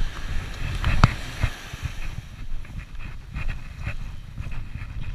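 Wind buffeting the microphone with a low, uneven rumble, over the wash of surf. Short knocks and scuffs come through it, one sharp knock about a second in and a quicker run of them later, from footsteps and handling of the moving camera.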